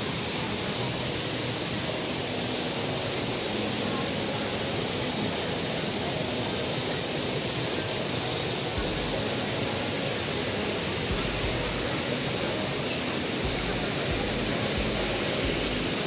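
Steady rushing of a stream and waterfall, an even hiss of running water, with intermittent low rumbles on the microphone from about nine seconds in.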